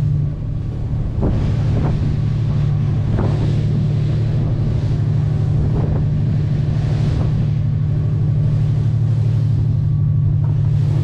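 Boat engine droning steadily while the boat runs through the sea, with waves washing and splashing along the hull and wind buffeting the microphone.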